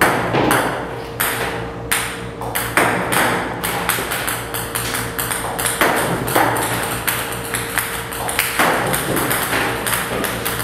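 Ping-pong balls clicking in quick, irregular succession as a table-tennis robot fires them and they bounce on the table and off a cat's paws, over a steady hum.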